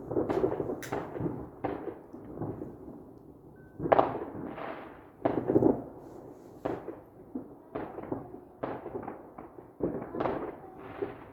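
Fireworks going off: a run of sharp bangs at uneven spacing, roughly one a second, each with a short dying tail, the loudest about four seconds in.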